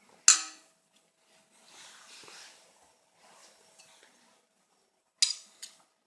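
Sharp clinks of a kitchen utensil against a mixing bowl as ingredients are added to the batter: one about a third of a second in and two close together near the end, with faint soft rustling between.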